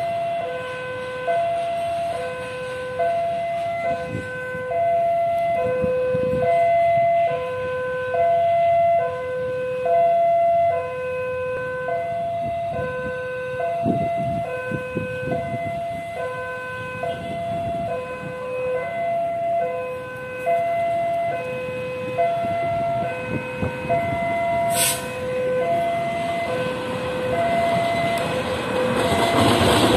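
Railway level-crossing alarm sounding its two-note warning, a high and a low electronic tone taking turns without a break, signalling that a train is coming. Underneath it is the low rumble of CC 206 diesel-electric locomotives being shunted, which grows louder near the end. There is one sharp click a few seconds before the end.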